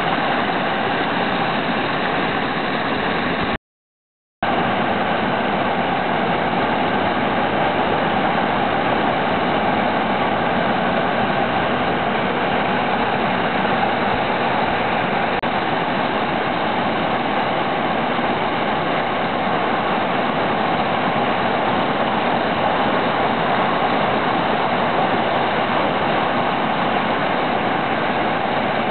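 Loud, steady rush of whitewater rapids pouring over boulders, with a brief total dropout about four seconds in.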